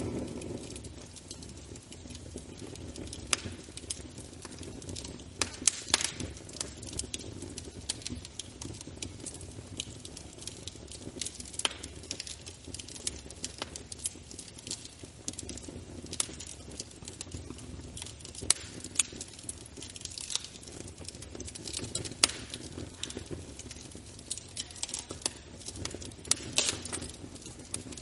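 Wood fire burning in a fireplace: irregular crackles and sharp pops over a low, steady rumble of flames.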